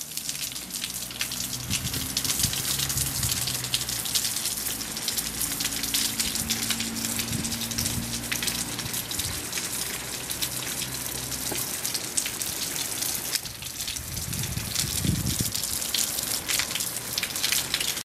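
Typhoon rain pattering and splashing on hard surfaces, a steady rush of many small drop hits with water gushing. A faint low hum runs underneath through the middle.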